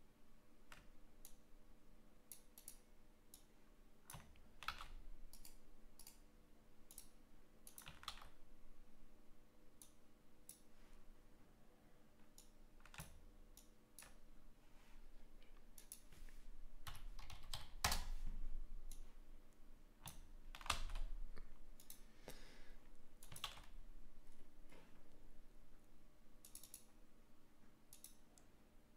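Computer keyboard typing and clicking: irregular taps and short runs of keystrokes with pauses between them.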